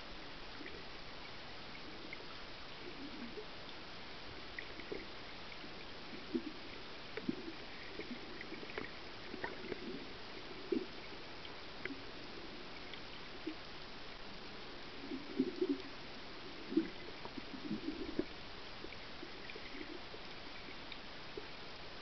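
Underwater water noise picked up by a camera held under the surface in shallow, surging water: a steady hiss with irregular short low knocks and pops that come thickest in the second half.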